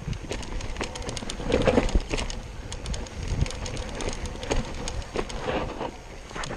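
Yeti SB6 full-suspension mountain bike riding fast down a dry dirt trail: tyres crunching over loose dirt and rocks, with frequent clicks and clatters of the bike over bumps. It is heard from a chest-mounted camera, and it is loudest around a second and a half to two seconds in.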